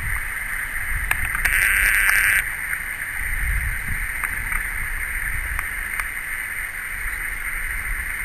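Wind rumbling on the microphone outdoors, over a steady high-pitched drone that swells louder for about a second near the start, with a few faint handling clicks.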